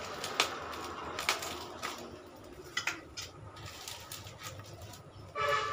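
Plastic bubble wrap crinkling and rustling as it is cut and pulled open with scissors, with a few sharp clicks and snips scattered through.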